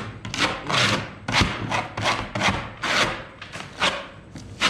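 Drywall taping knife scraping wet joint compound along a ceiling joint in quick repeated strokes, about two a second, pressing a first coat of mud into the joint.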